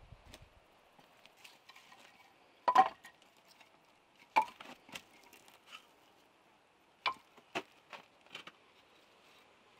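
Split firewood logs knocking and clunking against each other as they are pulled from a woodpile and gathered in the arms. A loud double knock comes about three seconds in, followed by a string of lighter, irregular knocks.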